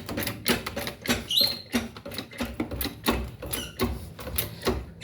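A car jack being worked to raise the car until the wheel is off the ground: a quick, irregular run of metallic clicks and knocks, about four a second, with a short squeak near the start.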